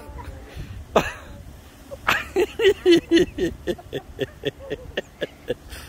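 A child laughing in a long run of quick, rhythmic giggles, about five a second, starting about two seconds in.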